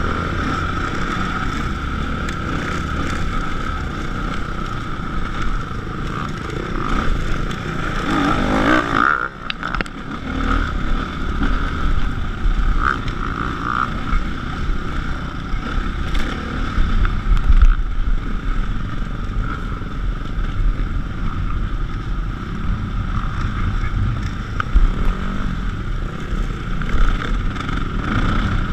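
Dirt bike engine running under load while riding over a rough dirt trail. The revs climb sharply about eight seconds in, then cut briefly.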